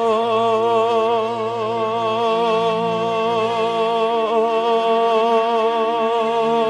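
A male singer holding one long high note with a steady vibrato, over a low sustained accompaniment.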